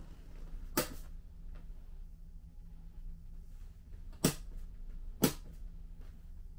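Three sharp clicks from the hinge of a black leatherette reclining floor seat as its backrest is pushed up, one about a second in and two more a second apart later on. A low steady hum runs underneath.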